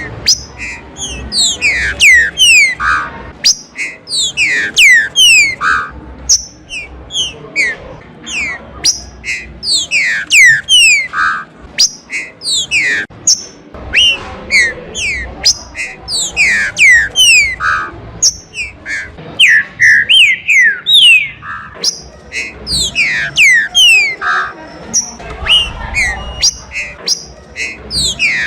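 Green-winged saltator (trinca-ferro) singing: loud whistled phrases of quick falling notes, repeated one after another.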